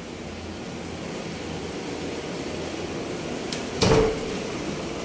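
Steady hum of air conditioning, with one short, loud thump about four seconds in.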